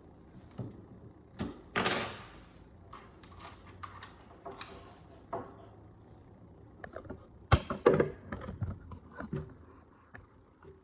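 Irregular clicks, knocks and clattering from hard objects being handled, with a louder scraping burst about two seconds in and a cluster of sharp knocks near eight seconds.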